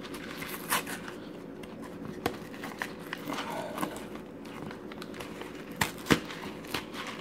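Thin paperboard of a Kraft Dinner macaroni box being torn open by hand along its perforated flap: scattered small crackles and rips of the cardboard, with a few sharper snaps.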